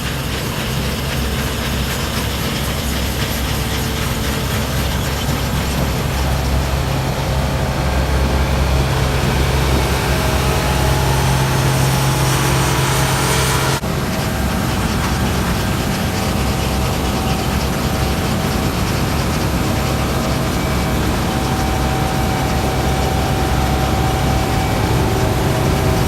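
A large farm machine's engine running steadily with a deep, even hum; the sound changes abruptly about 14 seconds in.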